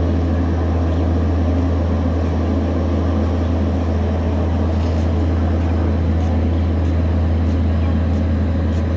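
Indian Railways electric locomotive hauling an express train slowly into a platform: a steady loud hum and running noise from the locomotive and its wheels, with a few faint clicks in the second half.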